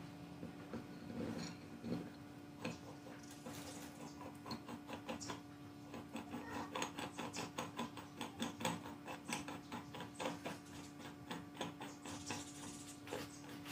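Quick, ratchet-like metallic clicking as a round metal hub part is turned by hand on a shaft in a pedal-drive housing. The clicks come sparsely at first, then in a dense run through the middle and later part. A steady low hum runs underneath.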